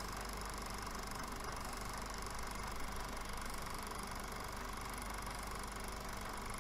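A steady mechanical hum with hiss that does not change in level or pitch.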